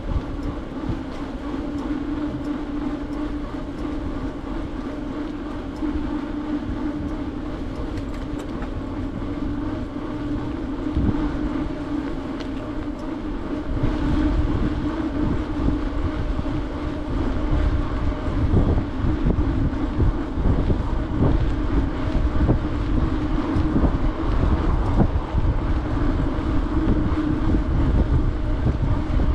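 Bicycle rolling along a paved path: a steady hum from the tyres over a low rumble of road vibration and wind, growing louder and rougher about halfway through.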